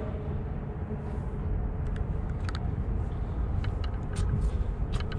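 Wind buffeting the GoPro Hero 7 Black's built-in microphone, a fluctuating low rumble. A few sharp ticks come in the second half.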